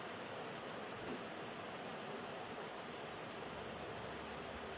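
A cricket chirping in a continuous high-pitched trill, over a steady background hiss.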